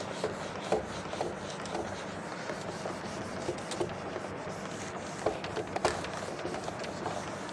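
Faint scratching of a pen writing, with scattered light taps.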